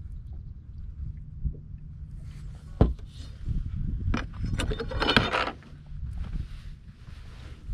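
Knocks and rustling as a bass is handled and stowed on a fiberglass bass boat's deck, with a sharp knock about three seconds in and a louder noisy scuffle a little after the middle, over a low steady rumble.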